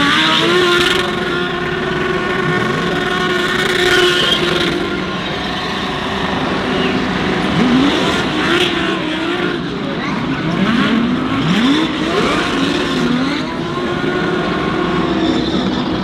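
GT3 race car engine held at high revs and blipped up again and again, with tyre squeal, as the car spins donuts.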